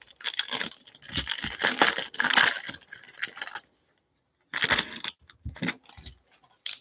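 Clear plastic wrapper of a trading-card pack being torn open, crinkling and crackling for about three and a half seconds. After a short pause come a few more brief crinkles and clicks as the wrapper is handled and tossed aside.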